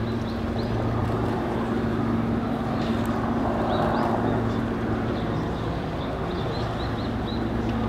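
Steady low drone with a constant hum running through it, with a few faint short high chirps now and then.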